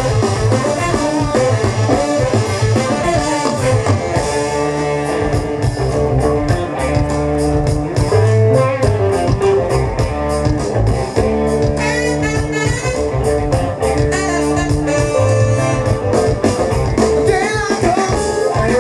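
Live band playing through a stage PA, heard from the crowd: drum kit and electric guitar with trumpet and saxophone, and at times a voice.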